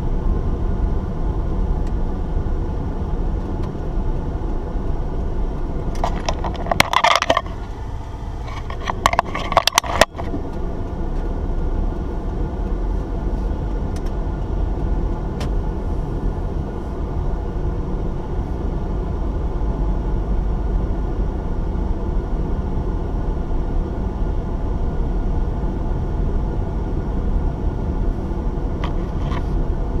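Car driving along a paved road, heard from inside the cabin: a steady low rumble of engine and tyres. About six seconds in and again about nine seconds in come two short bursts of rattling.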